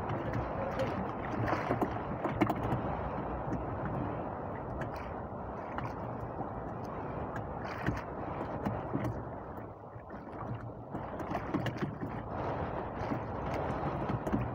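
Sea water sloshing against the hull of a small boat on a choppy sea: a steady noise with scattered small knocks and clicks, easing briefly about two-thirds of the way in.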